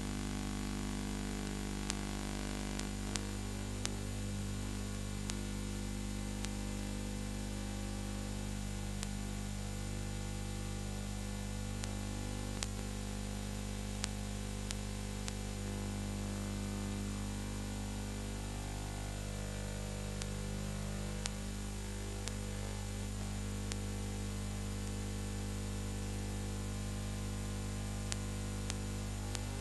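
Steady electrical mains hum with hiss and scattered small clicks: noise from the transfer of a silent film, with no recorded sound of its own.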